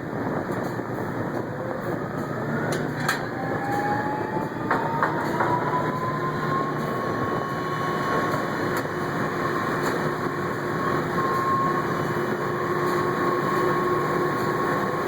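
Drilling rig machinery running steadily, with a whine that rises over a few seconds and then holds. A few sharp metal clanks sound about three and five seconds in.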